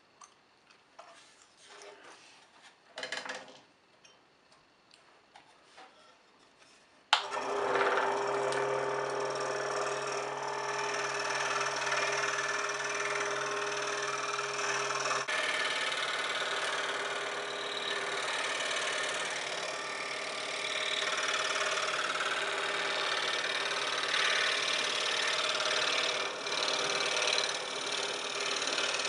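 Scroll saw switched on about seven seconds in, then running steadily, its reciprocating blade cutting a walnut blank. Before it starts, only faint handling sounds and a soft knock as the blade is threaded through the workpiece.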